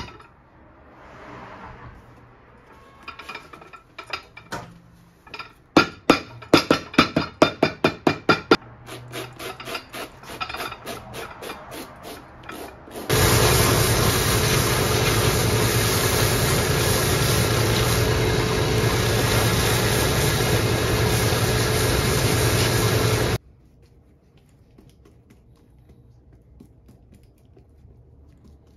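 A shoe-repair finishing machine's sanding wheel runs steadily with a hum for about ten seconds, starting and stopping abruptly. Before it comes a run of quick, sharp hand-tool strokes, about four a second, and after it only faint handling sounds.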